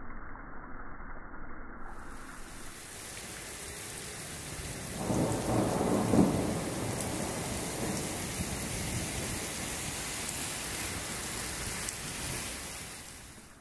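Rain hissing steadily, with a long roll of thunder that builds about five seconds in, is loudest around six seconds, then rumbles away over several seconds.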